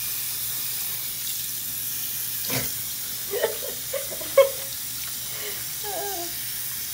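Bathroom sink faucet running steadily, the water splashing over a puppy and hands into the basin. A single knock comes a little before the middle, and a few brief, faint pitched sounds follow later on.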